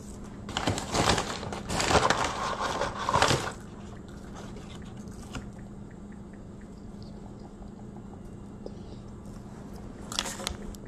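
Paper fast-food bag crinkling and rustling as it is handled for about three seconds, followed by a steady low hum. A shorter burst of rustling comes near the end.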